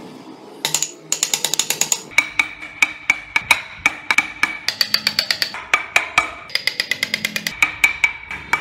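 Steel wood chisel struck by quick hammer taps, cutting into a wooden block: sharp ringing strikes at about six a second, starting about half a second in.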